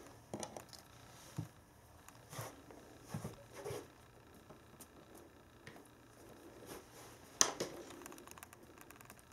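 Norwegian Forest Cat playing with a silver-grass wand toy: irregular soft thumps and scuffs of its paws on a wooden floor, with rustling from the grass plume. A sharper knock comes about seven seconds in.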